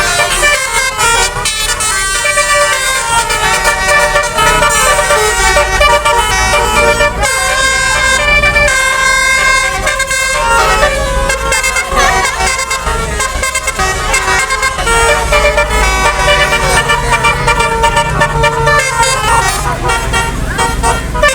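Bus 'telolet' musical air horn (a basuri horn) tooting a string of multi-note tunes, its tones stepping from pitch to pitch, over a steady low rumble.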